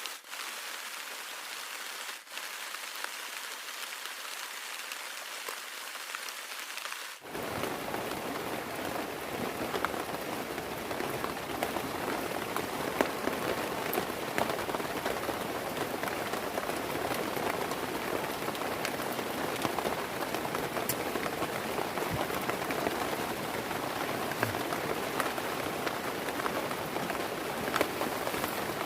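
Heavy rain falling steadily, with scattered sharp drop hits. About seven seconds in it turns suddenly fuller and a little louder, with more low rumble.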